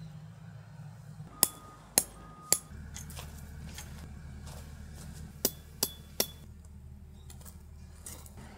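Metal hammer driving steel tent pegs: two groups of three sharp, ringing strikes, about half a second apart.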